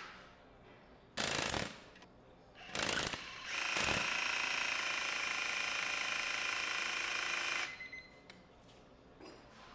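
DeWalt 12V DCH072 compact SDS rotary hammer with its trigger feathered, its chisel bit hammering against a steel test fixture. It gives two short bursts, then runs for about four seconds at a steady rate and stops abruptly, with a few faint blips after.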